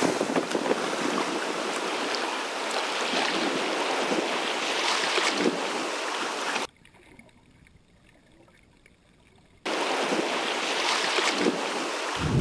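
Wind and water rushing past a sailing yacht's hull as it sails, with wind buffeting the microphone. It drops to near silence for about three seconds midway, then the rushing returns.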